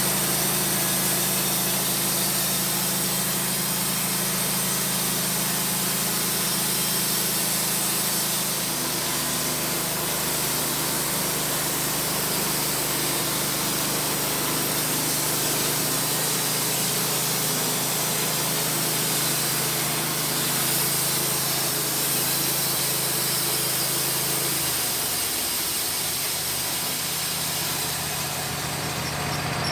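WoodMizer LT15 portable band sawmill running steadily, its band blade cutting through a hard maple log. The engine note drops slightly about 8 seconds in, then falls and changes near the end.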